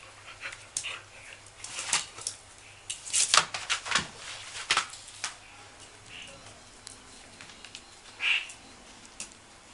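Two dogs playing: a flurry of quick scrabbling clicks and scuffles, busiest about three to five seconds in, with a short high squeak near the end.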